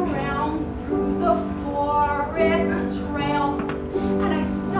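A woman singing over piano accompaniment, with held piano chords sounding under her melody.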